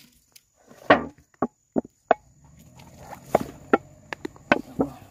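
Dumpling dough being kneaded by hand in a stainless-steel bowl: a string of irregular thumps and knocks, about one or two a second, as the dough is pushed and pressed against the bowl, the loudest about a second in.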